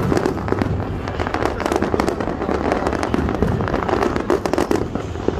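Aerial fireworks display going off: a dense, continuous run of rapid pops and crackles from bursting crackling stars.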